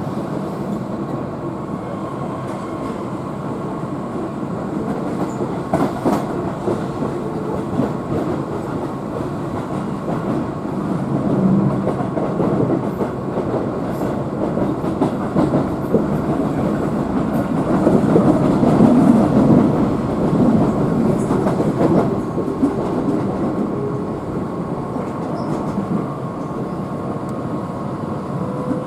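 Interior running noise of a Keihan electric train under way between stations: a steady rumble of wheels on rail with a faint steady whine and occasional clatter. It grows louder for a few seconds past the middle, and a rising tone begins near the end.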